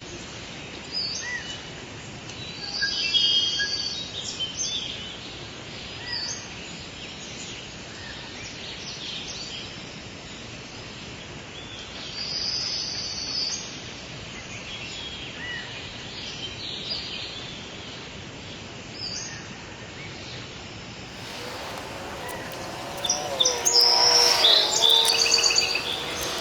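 Small birds chirping and singing, in short scattered calls over a steady background hiss. Near the end a louder sound of several layered, held tones joins in.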